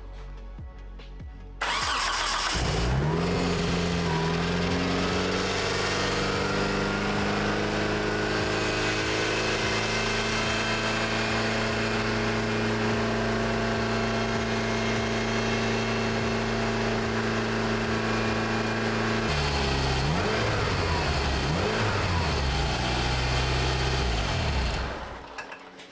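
Mitsubishi Eclipse GSX's turbocharged 4G63T four-cylinder starting about two seconds in and running at a loud, high cold-start idle of around 3000 RPM. The pitch settles over the first few seconds, then swings up and down several times before the engine shuts off near the end.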